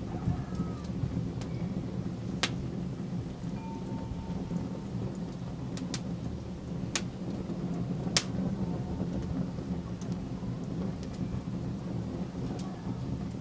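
Open wood fire and coals burning with a steady low rumble, broken by a few sharp crackling pops.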